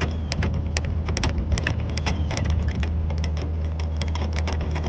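Trailer tongue jack being hand-cranked up, its crank and gears giving a quick, uneven run of sharp clicks, several a second, over a steady low hum.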